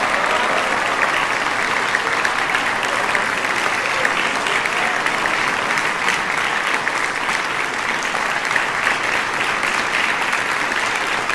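Audience applauding: many hands clapping steadily and evenly.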